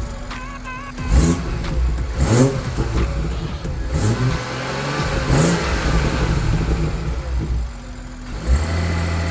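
Car engine revving up and falling back several times, then running steadily near the end.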